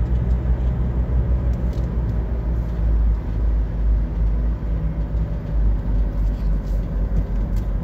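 Road and engine noise inside a moving car: a steady low rumble with tyre hiss above it.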